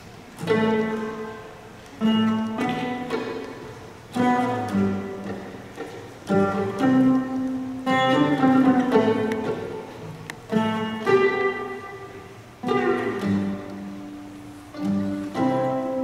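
Live acoustic music: a violin and two acoustic guitars play an instrumental passage. A new plucked chord or phrase starts about every two seconds, rings and fades.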